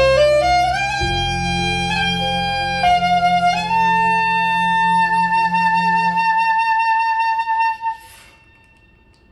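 Freshly repaired soprano saxophone playing a short climbing phrase into one long final note with vibrato, which stops about eight seconds in. A low accompaniment underneath ends a couple of seconds before the note.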